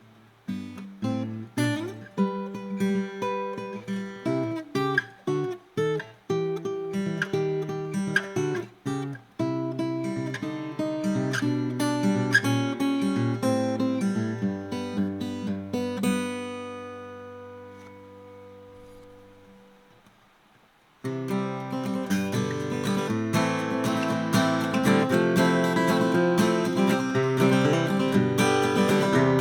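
A 1959 Gibson LG-2 small-bodied flat-top acoustic guitar being played. Picked notes and chords run for about sixteen seconds. A chord is then left ringing and fades almost to nothing. About two-thirds of the way through, steady strumming starts.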